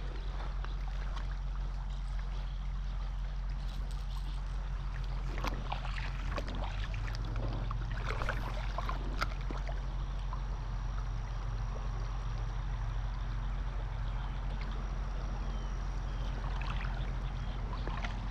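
Shallow creek water running steadily, with scattered light clicks and knocks about five to ten seconds in.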